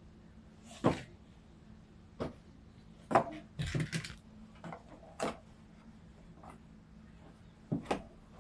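A run of irregular knocks and light clatters from hard objects striking a hard surface, about eight in all. The loudest come about a second and three seconds in, with a quick cluster just after and a double knock near the end.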